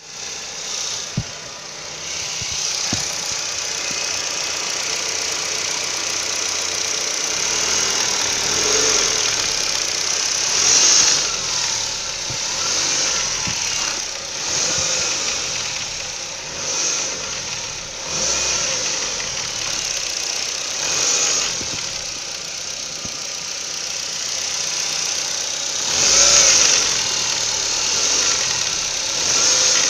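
Ford Focus 1.6-litre eight-valve Duratec engine running, with a knock that the owner cannot identify. The engine note swells a few times.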